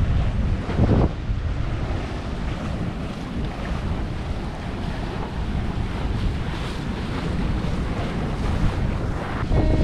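Wind buffeting the microphone and water rushing past the hull of a sailing yacht under sail, with a stronger gust about a second in.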